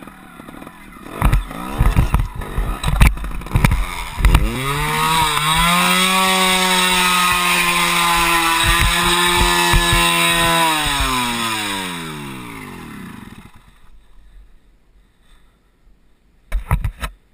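Sherco 2.9 trials motorcycle's two-stroke engine: a few throttle blips among clattering knocks, then it revs up about four seconds in and is held at high, steady revs for about six seconds before winding down and stopping. A couple of sharp knocks near the end.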